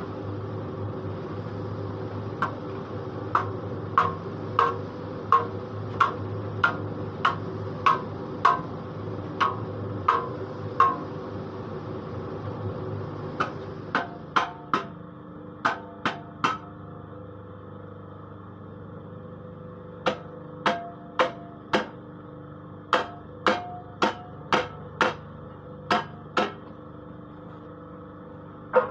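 Sharp metallic knocks from a paving block press, coming in runs of about one and a half per second with a short ringing after each, over the steady hum of the machine's motor. The hum drops about halfway through, and the knocks pause twice before starting again.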